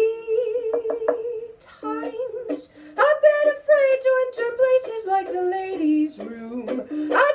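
A voice singing a song, holding one long note with a wavering pitch for the first second and a half, then singing a line of words.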